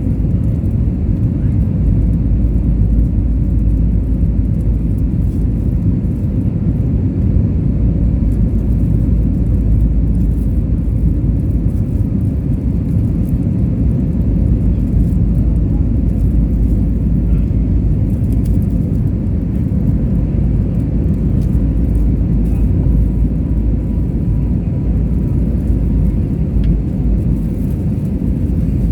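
Steady low rumble of an Airbus A320neo's jet engines and airflow, even throughout with no single event standing out.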